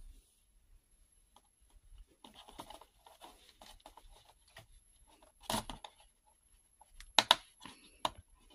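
Fingers scraping and pushing at a perforated cardboard door on a LEGO Star Wars advent calendar: soft rubbing and rustling, with a few sharp snaps of the cardboard about five and a half and seven seconds in. The door is stiff and hard to push open.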